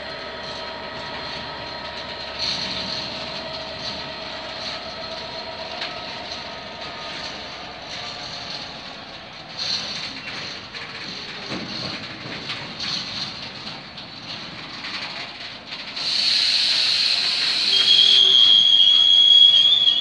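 A freight train of yellow open box wagons rolls past, its wheels clicking irregularly over the rail joints. About three-quarters of the way in, a loud hiss rises, followed by a steady high-pitched wheel squeal to the end.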